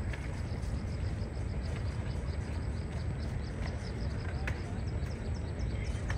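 Riverside outdoor ambience: a steady low rumble under a small bird's rapid run of high chirps, about five a second, with a few sharper single calls.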